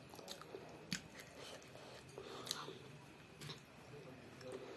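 A child chewing a mouthful of food, faint, with a few short wet mouth clicks scattered about a second apart.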